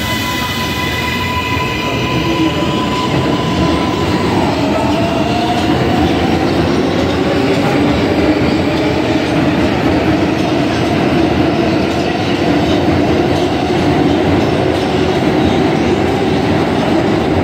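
R142A subway train running past the platform on the rails: a steady high-pitched tone from its propulsion that steps down in pitch about four seconds in, over a continuous rumble of steel wheels on the track.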